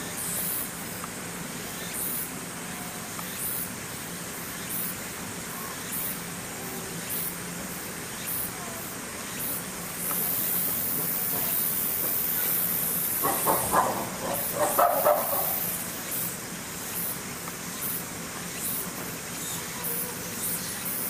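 Outdoor ambience: a steady low hum, with a faint high chirp repeating about once a second. About two-thirds of the way through comes a short, choppy burst of calls or voices, the loudest sound here.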